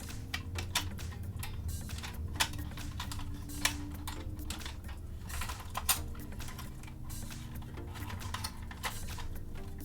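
Irregular clicks and taps of hard plastic toy parts being handled and pushed into place on a toy helicopter, a few sharper snaps standing out, over faint background music.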